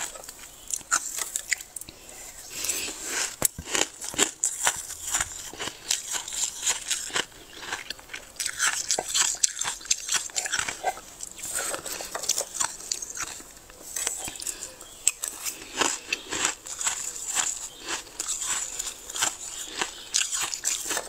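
Freezer frost being bitten and chewed up close: a dense, uneven run of crisp crunches.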